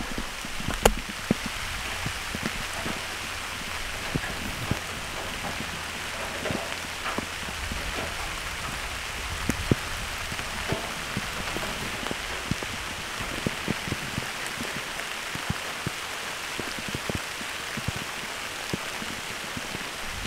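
Steady rain falling through the woods, an even hiss with many separate drops ticking sharply close by.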